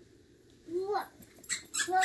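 One short squeak that rises and falls, about a second in, amid dogs playing with plush toys. Near the end comes a rustle as the husky snatches a stuffed toy.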